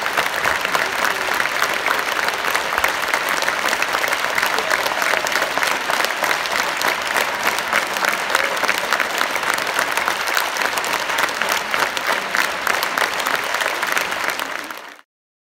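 Large audience applauding steadily, with many hands clapping together, then fading out quickly and stopping shortly before the end.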